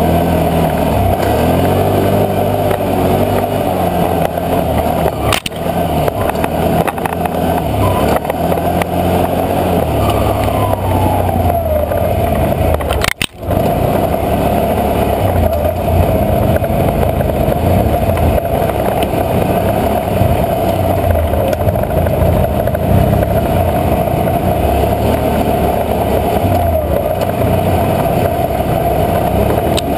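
ATV engine running under changing throttle, its pitch rising and falling as it rides a rough, muddy trail. A brief dropout about 13 seconds in.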